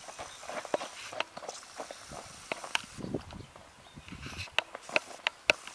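Horse's hooves striking the ground in an irregular series of knocks, with the sharpest few coming in quick succession near the end.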